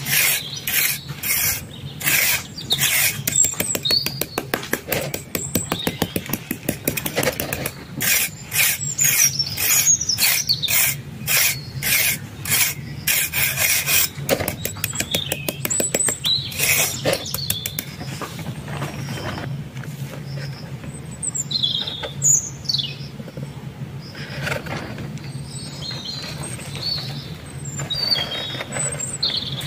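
A small hand trowel scraping and smoothing fine sand in quick repeated strokes, which thin out and stop about two-thirds of the way through. Birds chirp now and then, more often near the end, over a steady low hum.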